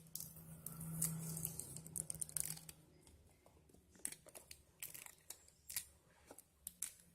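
Scissors cutting into a phone box's packaging, with a scatter of short snips, clicks and rustles.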